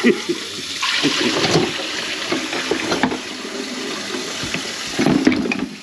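Water running steadily from a kitchen tap into the sink, as the freshly unclogged drain is tested.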